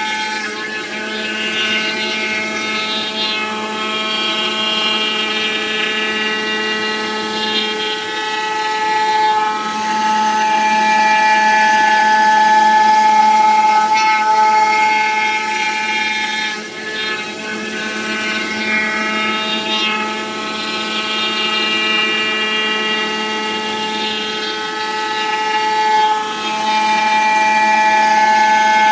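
CNC foam cutting machine running with a steady, many-toned whine that swells and eases every few seconds as it cuts EVA foam.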